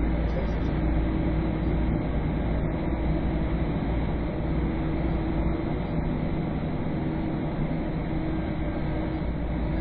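Steady road and engine noise of a vehicle driving through a road tunnel, heard from inside the cabin: an even rumble with a faint steady hum.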